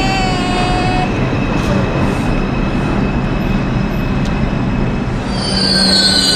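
Subway train running in a station: a steady loud rumble, with a falling whine that stops about a second in. Shrill metal wheel squeal sets in about five seconds in.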